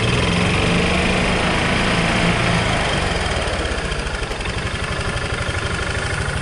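2006 Club Car gas golf cart engine running with the throttle pushed, the drive clutch engaging, as its throttle response is tested with a newly installed governor cable. The engine note is strongest in the first half and eases off a little later.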